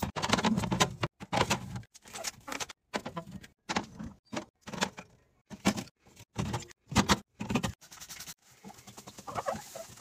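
A glass jar and aluminium drink cans being set down on a refrigerator's glass shelf: a quick series of short clinks, taps and knocks, broken off suddenly several times.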